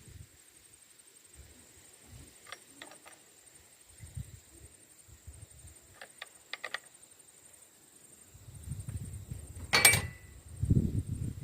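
Light metallic clicks from handling a chainsaw chain and file, then a low rumble and a single sharp metal clank that rings briefly, the loudest sound, near the end. A faint steady high whine runs underneath.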